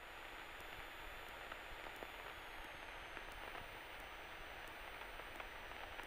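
Faint, even static hiss on the aircraft's radio and intercom audio while no one is transmitting, with a thin steady tone underneath.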